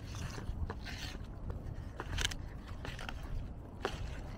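Fingers tearing at fry bread on a paper plate: scattered soft rustles, scrapes and small clicks.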